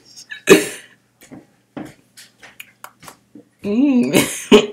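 A boy's wordless vocal noises: a short cough-like burst, then soft mouth clicks, then a wavering voiced sound and more short bursts near the end.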